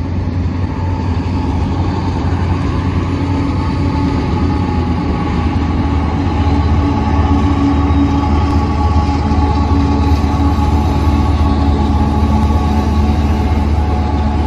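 Canadian Pacific GE AC4400CW and EMD SD60 diesel-electric locomotives passing at the head of a ballast train, their engines making a steady deep drone that grows a little louder about halfway through as they come by. The ballast cars follow, rolling on the rails.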